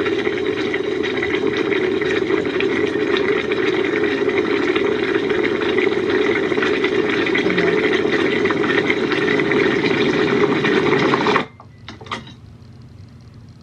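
A coffee machine running loudly and steadily, cutting off suddenly near the end, followed by a couple of light clicks.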